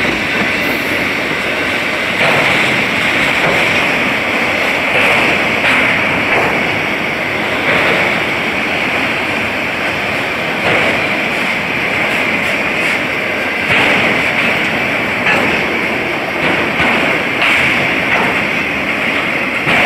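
Freight train of autorack cars passing at speed: a loud, steady rushing of wheels on rail, with a sharper clack every couple of seconds.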